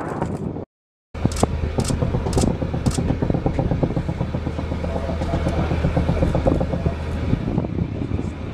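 An explosion's rumble cuts off under a second in. After a brief silence, an AH-1 Cobra attack helicopter is heard flying: a rapid rotor beat over a steady low engine drone, with several sharp cracks in the first few seconds.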